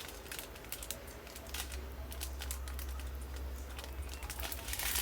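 Small plastic bags of diamond-painting resin drills being handled, giving faint crinkling and scattered light clicks.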